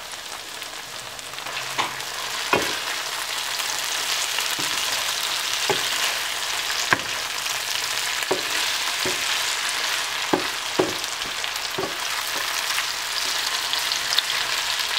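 Sliced aubergine, potato and bell pepper sizzling in oil in a frying pan, stirred with a wooden spatula that knocks and scrapes against the pan about once a second. The sizzle grows louder about two seconds in.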